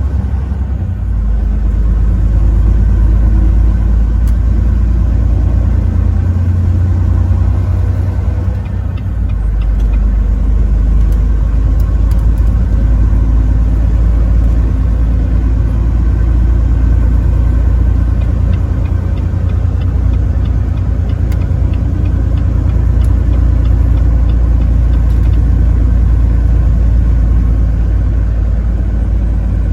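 Semi truck driving on the highway: a steady, heavy low engine and road rumble that eases briefly about eight seconds in.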